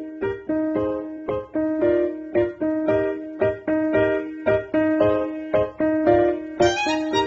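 Background music: piano or electric piano playing a repeating pattern of notes at about two a second, with a higher melody line joining near the end.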